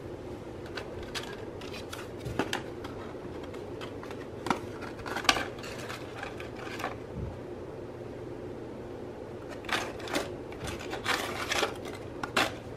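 Dry, brittle fallen houseplant leaves crackling and rustling against a woven seagrass basket as they are handled. The crackles come in several short spells, the longest near the end, over a steady low room hum.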